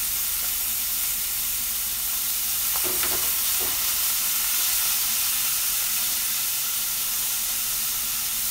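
Beef and carrot sizzling over high heat in a heavy, thick frying pan: a steady frying hiss, with a few light clacks of chopsticks stirring against the pan about three seconds in.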